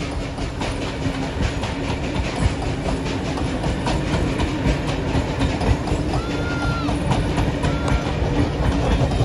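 Train running along the track, its wheels clicking rapidly over the rail joints over a steady low hum. A short high tone sounds twice near the end.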